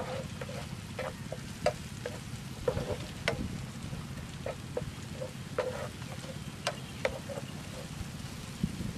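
Chopped tomatoes and chilies sizzling in oil in a nonstick frying pan, with a spatula stirring and scraping and knocking against the pan in irregular clicks about once or twice a second.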